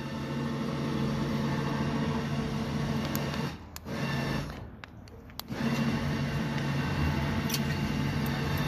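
Electric winch motor running with a steady hum while it pulls a stump grinder up. It stops briefly twice near the middle and then runs on.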